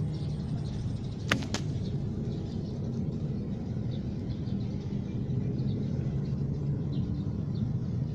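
Steady low engine rumble with a faint hum. A single sharp click comes just over a second in.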